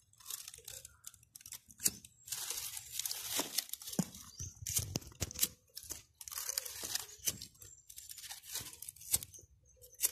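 Dry banana leaves and twigs rustling and crackling as they are crumpled and pushed under a pot to build a fire, in irregular bursts with several sharp snaps.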